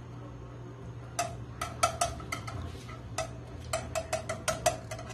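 A stirring utensil clicking and tapping against a small nonstick saucepan while butter is stirred to melt it, the irregular taps starting about a second in. A low steady hum runs underneath.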